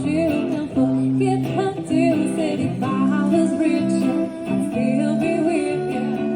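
Live pop music: a singer holding sung notes over acoustic guitar.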